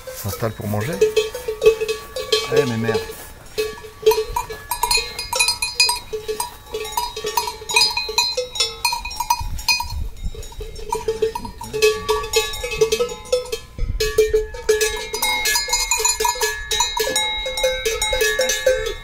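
Several cowbells on grazing cattle clanking irregularly as the cows move about, the bells ringing on overlapping notes.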